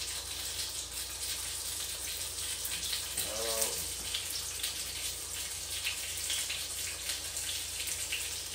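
Steady sizzle of a low-carb tortilla crunch wrap frying in a pan, with fine crackling throughout. A brief pitched hum comes about three seconds in.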